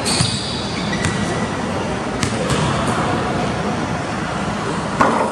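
Camera handling noise, a steady rushing as the camera is swung about, with a few sharp knocks, the loudest near the end.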